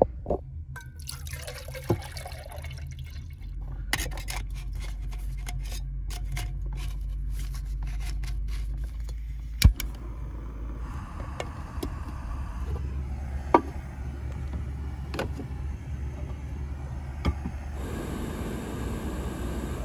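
Jetboil canister gas stove running under its cup, heating water: a steady low burner hum, a hiss that grows from about halfway and strengthens near the end as the water comes toward the boil, with a few sharp clicks.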